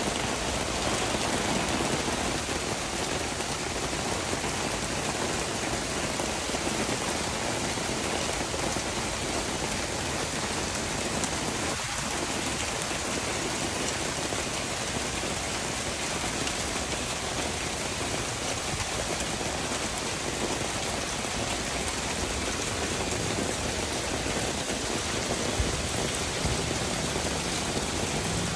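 Small hail falling steadily on artificial turf and pavement, a dense, even hiss of countless tiny impacts.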